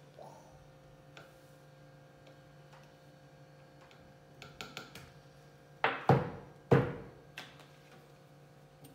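Handling of plastic bottles and a small food-colouring bottle: scattered small clicks and taps, with two louder knocks about six and seven seconds in, over a steady low hum.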